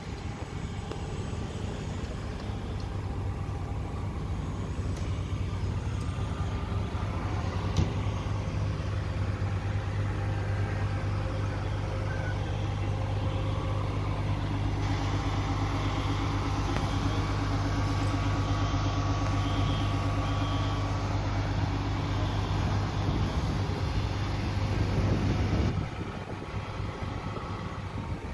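Heavy fire-apparatus engine running with a steady low drone, which drops away abruptly near the end.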